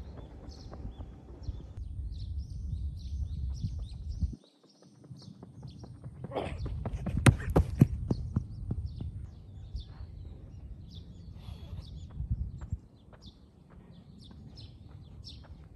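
Running footsteps on a turf field, a cluster of quick sharp footfalls loudest a little past halfway, with wind rumbling on the microphone in the first part and birds chirping throughout.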